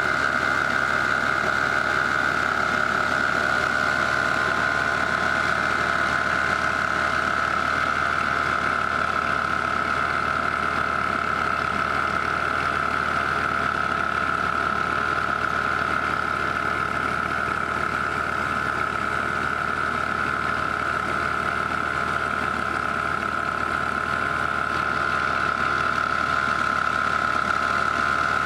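Massey Ferguson 240 tractor's diesel engine running steadily, driving a flour mill by shaft and flat belt while it grinds grain, with a steady high-pitched whine over the engine.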